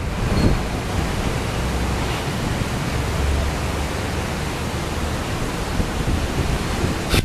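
Steady rushing noise of wind on the microphone, with uneven low rumbling underneath.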